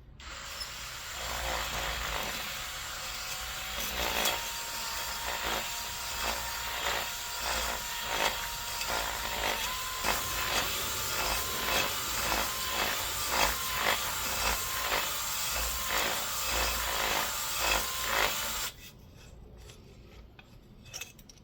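Electric drill spinning a cylinder hone in the oiled bore of a Honda XR500 cylinder, with a steady motor whine and a rhythmic scraping as the hone is stroked up and down about twice a second, breaking the glaze and putting a cross-hatch on the bore for new rings. It stops suddenly near the end.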